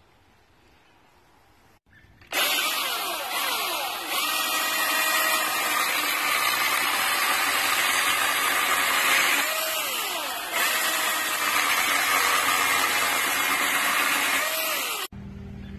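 Milwaukee M18 Fuel 16-inch brushless cordless chainsaw cutting through a wooden post. The electric motor and chain start about two seconds in and run loud and steady, the motor's pitch dipping briefly a few times as it loads in the wood. The sound stops abruptly near the end.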